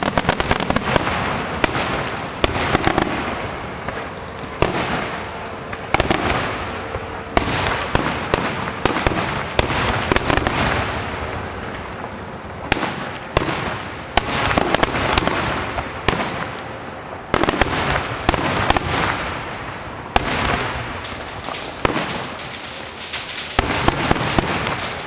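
Aerial fireworks display: sharp bangs about every one to two seconds, with crackling that fades away between them.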